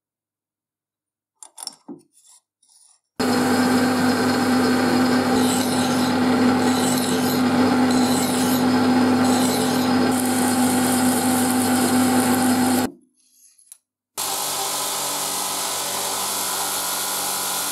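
Metal lathe running while a file is rubbed against a spinning steel pin: a steady rasping over the machine's hum, stopping about thirteen seconds in. After a short gap, a spinning polishing wheel runs steadily as the pin is pressed against it.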